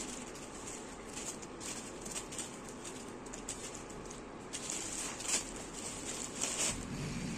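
Thin plastic bag crinkling and rustling as a hand rummages through a bagful of wild mushrooms, in irregular crackles that are loudest a little past the middle and again near the end.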